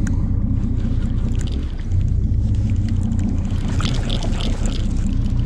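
Fishing boat's engine running with a steady low drone. Light clicks and rustles sound over it, loudest about four seconds in, as the big conventional reel is cranked.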